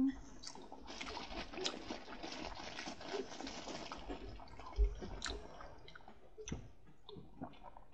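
Crinkly rustling dotted with small clicks for about five seconds, then a soft thump and a few separate clicks near the end.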